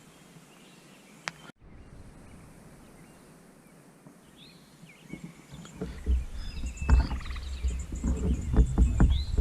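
Quiet outdoor background with faint bird chirps; from about five seconds in, an irregular low rumbling and thumping noise grows loud, with chirps over it.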